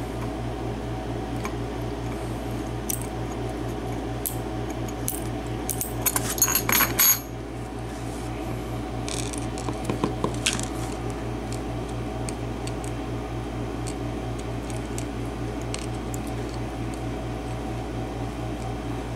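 Small metal lock pins and springs from a Trelock euro cylinder dropping and clinking onto a tray as the plug is pulled out, a quick cluster of clicks about six to seven seconds in and a few more about ten seconds in.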